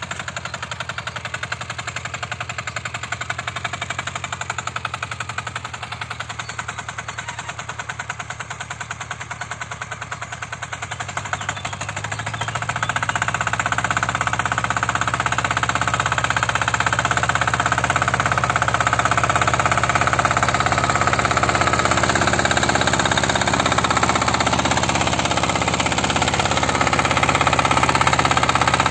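Motor Sich walk-behind tractor's single-cylinder engine chugging steadily under load while pulling a harrow through ploughed soil. It gets louder about twelve seconds in as the machine comes closer.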